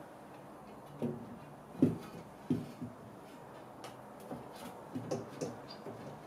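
Oval mirror glass being pressed by hand into its frame's recess: a series of soft, irregular taps and clicks as the glass edge knocks and settles into place.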